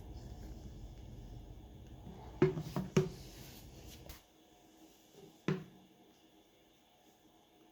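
A few sharp clicks and taps as small smartphone parts and tools are handled during disassembly: three close together about two and a half seconds in, and one more near the middle. Under them runs a low hum that drops away about four seconds in.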